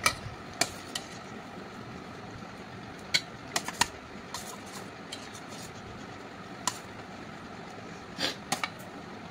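A serving spoon clinking against a plate and pot as meat curry is dished out: scattered sharp clinks, bunched about three and a half seconds in and again near the end, over a steady low hum.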